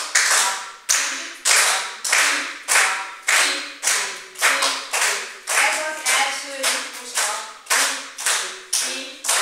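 Hand claps in a steady, even beat, about two a second, with a voice chanting a short syllable on each clap: a rhythm being clapped out for children to learn.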